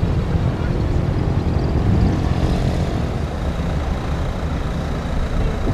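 Steady low engine rumble, with a faint high steady tone coming in about halfway through.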